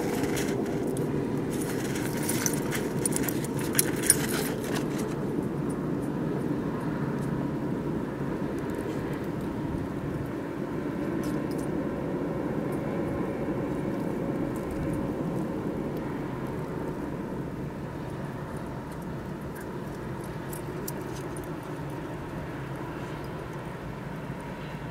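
A steady low outdoor rumble, with light jingling and clicking over it during the first few seconds. The rumble eases off a little toward the end.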